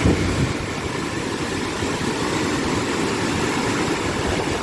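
Muddy floodwater rushing in a river swollen by heavy rain: a steady low rushing rumble.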